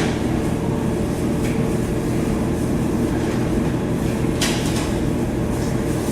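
A steady low mechanical hum, with a couple of brief rustling or scraping sounds from handling parts, one about four and a half seconds in.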